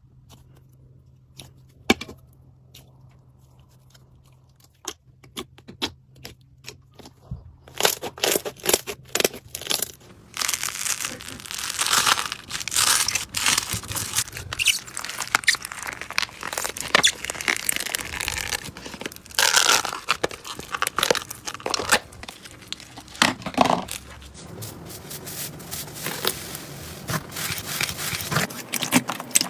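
Slime being handled, popping and crackling: sparse sharp clicks at first, then from about seven seconds in a dense run of crackling, squishing and popping.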